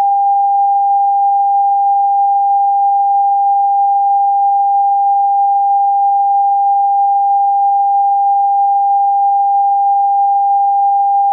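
Television test tone: one steady, unbroken pure pitch, broadcast with the colour-bar test card after the channel's closedown.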